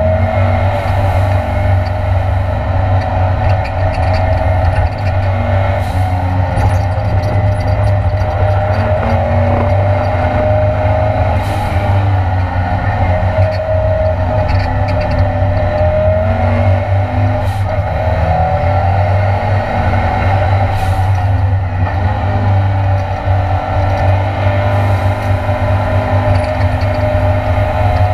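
Ford Escort Mk2 Cosworth race car's engine at full race pace, heard from inside the stripped cabin, its revs rising and falling as the car is driven hard around the circuit. A handful of short sharp cracks stand out over the engine noise.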